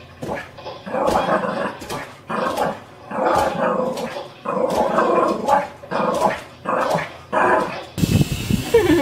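Dog barking and yipping in a run of short bursts, about one a second, joining in with a dog on the TV. Near the end a steady rush of noise takes over.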